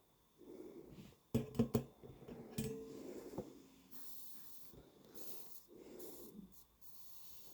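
Soft breathing puffs close to the microphone, with a quick run of three sharp clicks about a second and a half in, which are the loudest sounds. A couple of lighter clicks follow, typical of small tools or the board being handled during soldering work.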